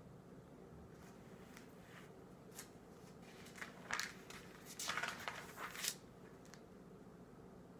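Pages of a hardcover prayer book being turned, a few short paper rustles loudest about four to six seconds in, over a faint steady hum.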